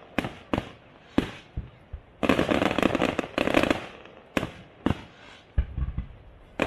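Aerial fireworks display: a few sharp single bangs, then a dense run of rapid crackling reports about two seconds in, more single bangs, and a couple of deep thuds near the end.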